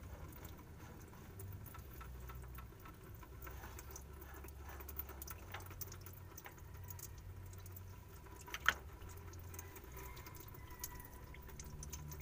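Faint wet handling sounds and small scattered clicks as oily hands work a part off the splined output shaft of a Hino truck gearbox, in a pool of gear oil that is overflowing the housing. One sharper click comes about nine seconds in, over a low steady hum.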